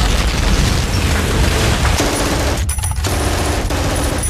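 Battle sound effects: rapid machine-gun fire and explosions over a heavy low rumble.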